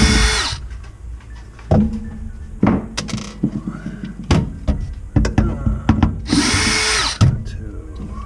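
Power drill running in two short bursts of about a second each, one at the start and one about six and a half seconds in, with scattered knocks and clatter of handling between.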